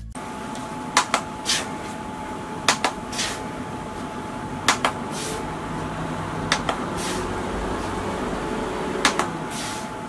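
Envow Mono cordless desk fan running with a steady rushing of air and a faint motor whine, while its control is pressed with a pair of sharp clicks about five times to change the fan speed; the running sound grows a little stronger after the middle.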